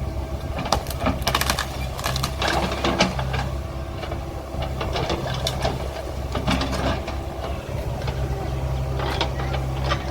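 Heavy machine's engine running steadily, with repeated sharp metallic clicks and rattles over it.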